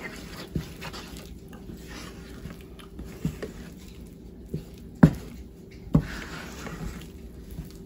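Wooden spoon stirring a thick tomato-paste curry base in a nonstick frying pan: scattered soft knocks and scrapes of the spoon against the pan at irregular intervals, the loudest about five seconds in, over a faint steady hum.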